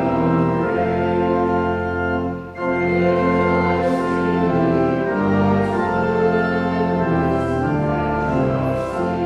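Organ music: held chords changing every second or so, with a short break about two and a half seconds in.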